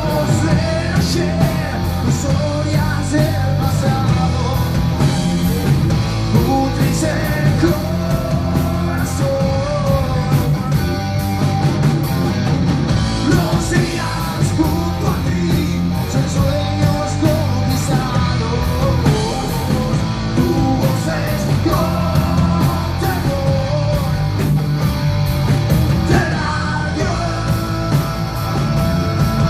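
Rock band playing with drums and guitar, and a voice singing.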